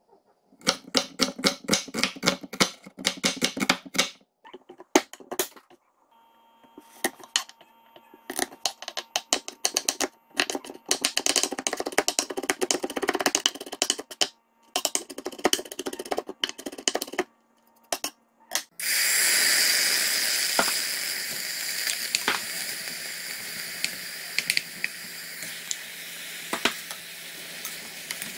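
Chef's knife chopping onion, then mincing garlic, on a wooden cutting board in rapid runs of knocks. About 19 seconds in, kimchi goes into a hot pot and starts sizzling loudly all at once. The sizzle slowly fades while a wooden spoon stirs, with a few knocks against the pot.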